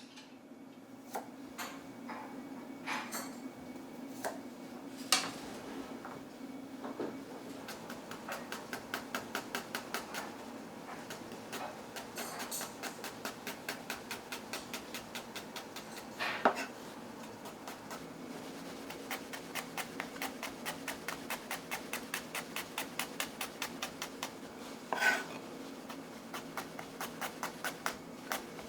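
Knife chopping on a cutting board in quick, even strokes, about four a second, with a few louder single knocks.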